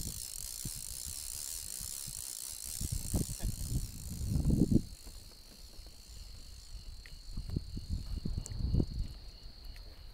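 Fly reel's click-and-pawl drag clicking as a trout is played, over uneven low thumps and rumble of wind and handling on the microphone, loudest about halfway through and near the end.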